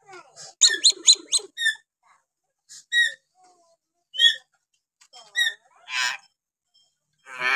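Hill myna (Bornean 'beo Kalimantan') calling in a varied series: a quick run of four or five short whistled notes about a second in, then single short whistles and harsher rasping calls spaced about a second apart.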